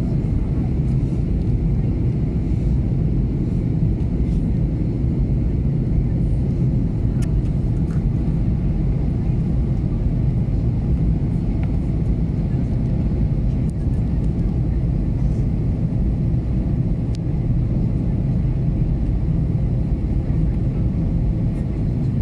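Steady low rumble of an Airbus A321neo in flight on approach, engine and airflow noise heard inside the passenger cabin.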